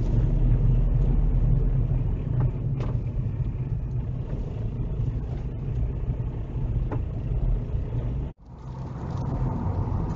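Steady low rumble of a car's engine and tyres on the road, heard from inside the cabin, with a few faint ticks. It breaks off for an instant about eight seconds in and resumes straight after.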